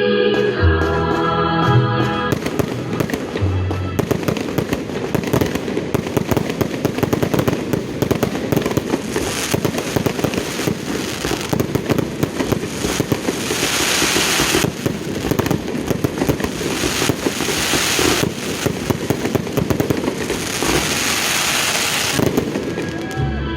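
Fireworks crackling in a dense, rapid stream of pops for most of the stretch, with two louder hissing surges in the second half. Music plays for the first couple of seconds and returns near the end.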